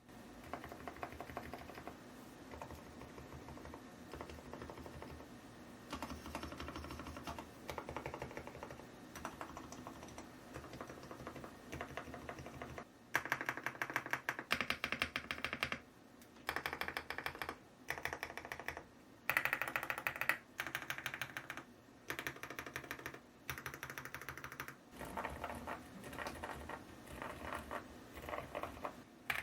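Typing on a Preflow F1 PRO MAX full-size mechanical keyboard: rapid runs of key clicks. Fainter for the first dozen seconds or so, then louder bursts of one to three seconds with short pauses between them.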